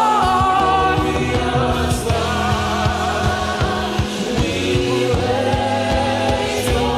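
Live gospel worship music: a choir holding sung notes over a band with steady bass and drums.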